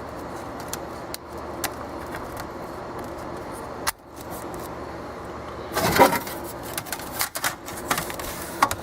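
Hands working on the HP EliteBook 8570p's memory bay: scattered sharp plastic clicks, then a busier run of clicks and scraping from about six seconds in, loudest near the start of that run. A steady low hum sits underneath.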